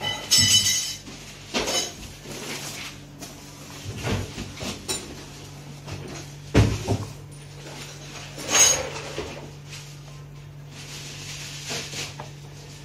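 Hands handling toy-bike parts and their clear plastic wrapping: irregular rustling and crinkling of the plastic with scattered knocks of plastic parts, the loudest a single thump about six and a half seconds in. A steady low hum runs underneath.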